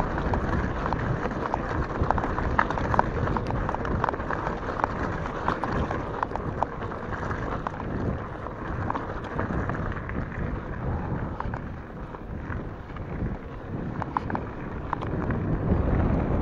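Wind rumbling across the microphone of a bike-mounted camera, over tyres crunching on loose gravel, with frequent sharp clicks and rattles as the e-mountain bike rides fast over the rough track.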